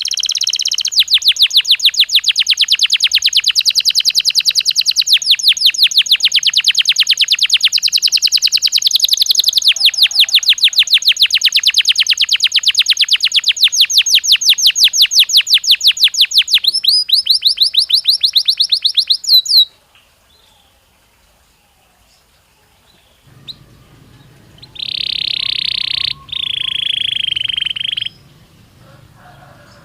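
Belgian canary singing: a long, fast, rolling trill lasting about twenty seconds that slows just before it stops, then after a pause two drawn-out whistled notes.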